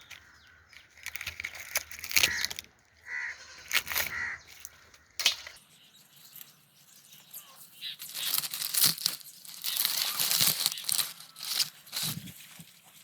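Dry leaves crackling and rustling as they are handled, with a dense spell of crackling about two-thirds of the way through.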